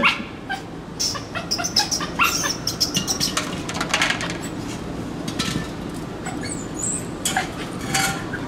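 A stick scraping and knocking among propane tanks and litter on a concrete alley floor, a run of irregular clicks and knocks with short high squeaks scattered among them.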